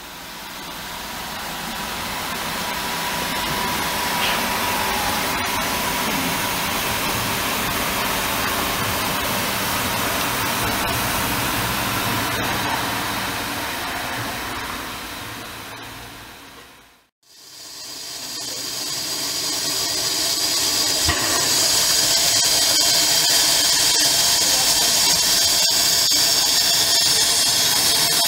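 Narrow-gauge steam locomotive 99 1781-6 standing with steam hissing steadily. The hiss breaks off about 17 seconds in, then comes back louder.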